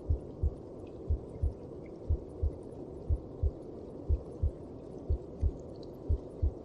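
A mother's heartbeat as heard inside the womb: a steady lub-dub, two low thumps close together about once a second, over a constant low whooshing.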